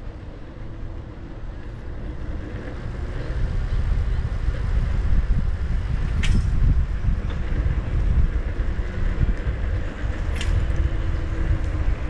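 Wind rumbling over the microphone of a camera moving along a paved bike path, with a faint steady hum under it. Two brief sharp high sounds stand out, about six seconds in and again near the end.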